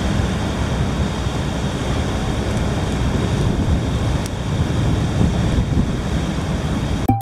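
Steady wind rumbling on the microphone with the wash of surf from a rocky shore; it cuts off suddenly at the very end.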